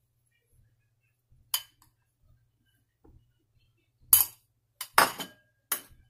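A metal spoon clinking against glass and ceramic bowls while a mixture is spooned from one to the other. There are a few sharp clinks: one about a second and a half in, then four close together in the last two seconds, the first of these the loudest.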